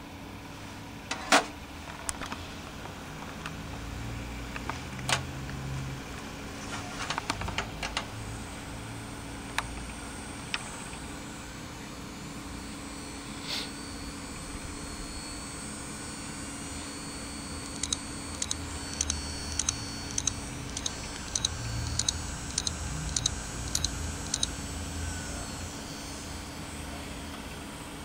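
Samsung HD750LJ-series hard drive (HD753LJ, 750 GB, 7200 rpm) running with a steady hum and a faint high whine. Scattered sharp clicks come in the first half, then a regular run of ticks, about two a second, lasts several seconds: the drive's abnormal noise that its owner is asking about.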